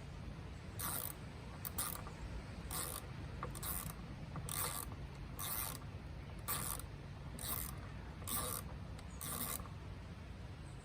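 Torx T20 screwdriver driving screws back into a car's air-filter housing, a short scraping stroke about once a second as each turn is made.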